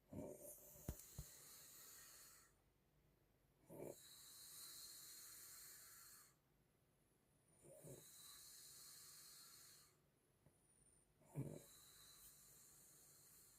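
An elderly woman snoring in her sleep, faint. Each breath is a short low snort followed by a long airy hiss, repeating about every four seconds, four times.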